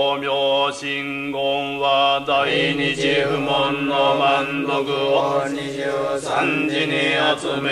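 Japanese Shingon Buddhist chanting: voices intoning in long, wavering held notes over a steady low tone.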